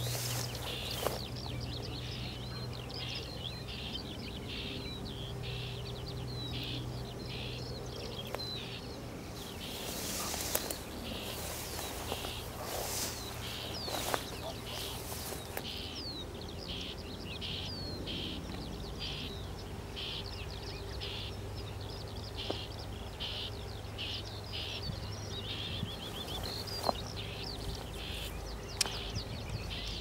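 Small songbirds chirping in quick repeated phrases throughout, over a steady low hum.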